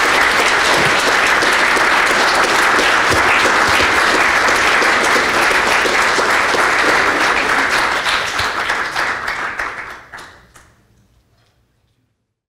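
Audience applauding, a dense steady clapping that dies away about ten seconds in and gives way to dead silence.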